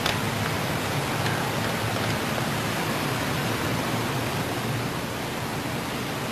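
Steady rushing background noise, like hiss, with no distinct events in it.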